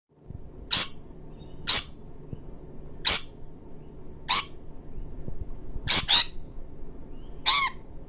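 A parrot giving short, shrill squawks, one every second or so, with a quick double call about six seconds in.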